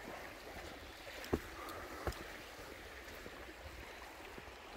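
Stream water running steadily, with two light knocks about one and a half and two seconds in.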